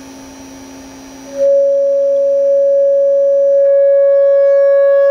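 Pair of 8-inch pro audio midrange speakers sounding one loud, steady pure tone, switched on suddenly about a second and a half in. The tone is set to the crystal wine glass's resonant frequency to shatter it. Before it, only a low electrical hum.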